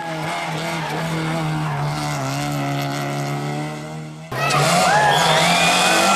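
Toyota Yaris rally car engine running hard on a tarmac stage, its note held steady and easing slightly lower. About four seconds in the sound jumps louder, as another car's engine is heard with tyres squealing through a corner.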